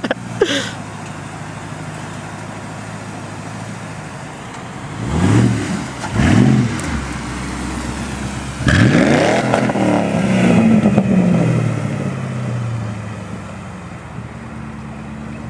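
Ford Crown Victoria's V8 through a loud exhaust: running steadily, revved twice about five seconds in, then accelerating hard near nine seconds and pulling away, its note falling and fading as it drives off.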